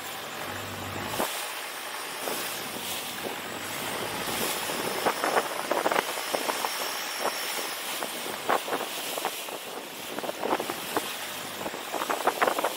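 Wind rushing over the microphone and water splashing along the hull of a moving longtail boat. Irregular slaps of water come more often near the end.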